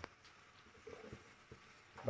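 Near silence: faint room tone with a few soft, brief sounds about a second in.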